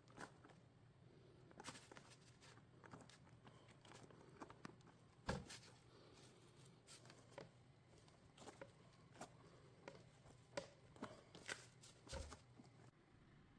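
Faint, irregular light clicks and taps of small things being handled, with a louder knock about five seconds in and another near the end.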